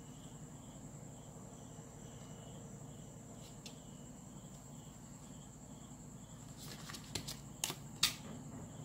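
A plastic ruler is lifted and laid back down on a sheet of paper, giving a few light clicks and taps near the end. Underneath is a quiet background of low hum and a faint, evenly pulsing high chirp.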